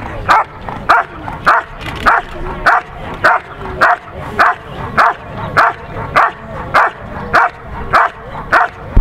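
A German Shepherd barks steadily at the helper in the blind, one sharp bark about every 0.6 seconds at an even pace throughout. This is the hold-and-bark of Schutzhund protection work: the dog guards the hidden decoy by barking without biting.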